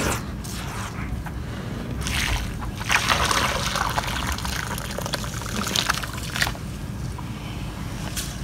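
Water poured from a clay pot onto a heap of dry red dirt, splashing and trickling as it spreads and soaks in. It builds about two seconds in, is loudest from about three to six seconds, then tapers off.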